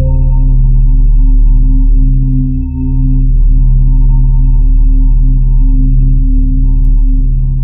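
Synthesized intro sound: a loud, steady drone of several layered low tones with heavy bass, beginning to fade out near the end.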